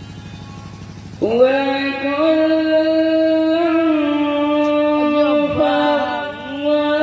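A man's voice chanting a slow melodic recitation through a microphone and loudspeaker, holding long steady notes that slide in pitch now and then. A low hum comes first, and the voice comes in about a second in.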